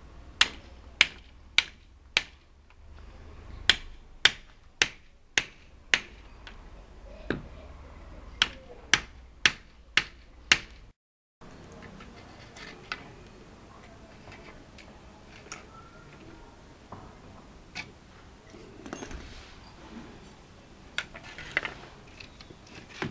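Hammer blows knocking old nails out of scrap wood strips, sharp single strikes about two a second for the first eleven seconds. After a short break come quieter scattered clicks and scrapes as pincers pull out the nails and the strips are moved.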